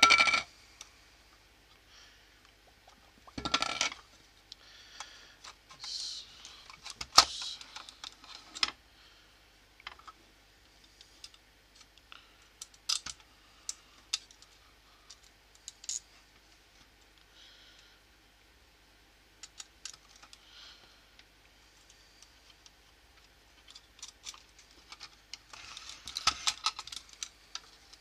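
Plastic parts of an air ionizer being handled and fitted back together: scattered clicks, taps and knocks, with a few louder clatters about 3 and 7 seconds in and near the end.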